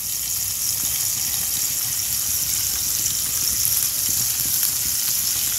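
Raw prawns sizzling in hot oil in a frying pan as they are placed in: a steady hiss.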